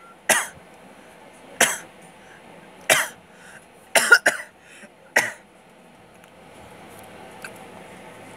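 A person coughing close by: a string of sharp, short coughs about a second apart, two in quick succession about four seconds in. The coughing stops a little past halfway, leaving a low steady background hum.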